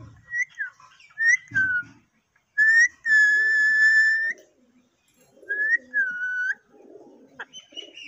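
Alexandrine parakeet whistling: a few short whistles, then one long steady whistle held for over a second, and a short two-part whistle later on.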